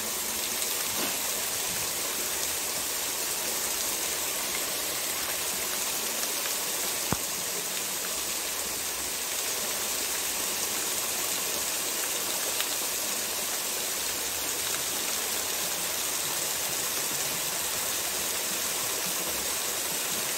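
Water pouring over a small concrete weir into a shallow stream: a steady rush of falling water, with one faint sharp click about seven seconds in.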